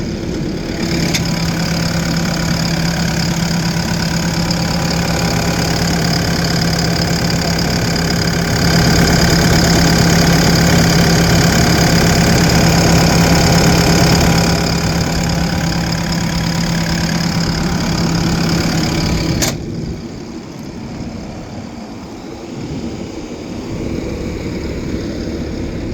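Bobcat T770 compact track loader's four-cylinder diesel engine running steadily, louder for several seconds in the middle. About three-quarters of the way through, the sound drops suddenly to a quieter, lower rumble.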